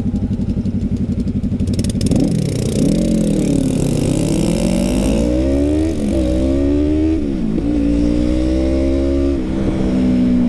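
Yamaha MT-03 parallel-twin engine through a full aftermarket exhaust, accelerating hard. The pitch climbs and drops sharply about three times as the bike shifts up through the gears, then holds steady near the end.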